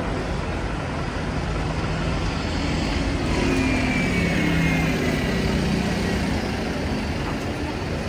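City street traffic, with a motor vehicle's engine coming close and passing between about three and six seconds in, loudest midway, and a faint high whine sliding down in pitch as it goes by.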